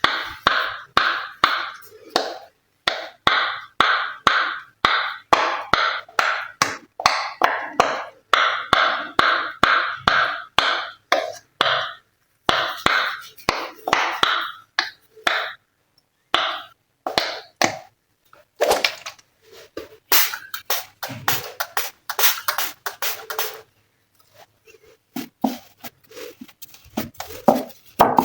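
Glossy slime being squeezed and kneaded by hand: a steady run of wet squelches, about two to three a second, then a denser stretch of crackling, popping clicks about two-thirds of the way through.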